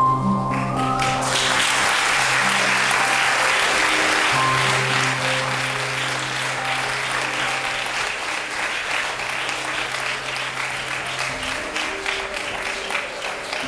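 An audience applauding, starting about a second in and slowly dying down, over background music with a long held low note.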